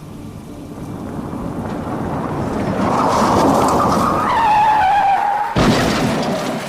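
Car crash sound effect: a car's noise builds, tyres screech, then a sudden loud crash near the end.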